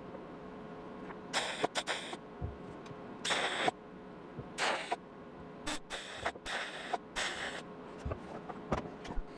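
Welder laying a series of short tack welds on car sheet metal: about seven brief sizzling bursts, each under half a second, spaced roughly a second apart, tacking a patch panel into a quarter panel.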